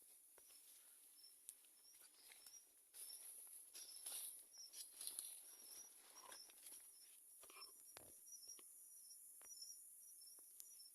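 Faint countryside ambience of insects: a steady high buzz with a running series of short, high chirps, typical of crickets, and a few soft clicks and rustles.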